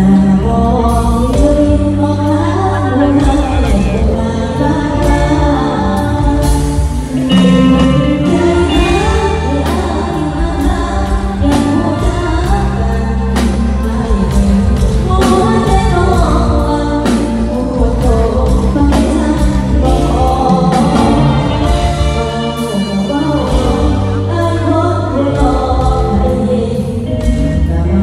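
A girl singing into a microphone over backing music with drums and a heavy bass line, all through a stage PA system during a sound check.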